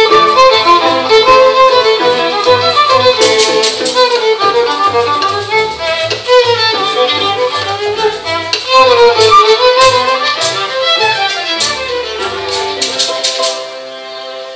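String quintet of violins, viola, cello and double bass playing a lively piece, with violins carrying the melody over a moving double bass line. Sharp percussive clicks cut in at times. Near the end the playing drops to quieter held notes.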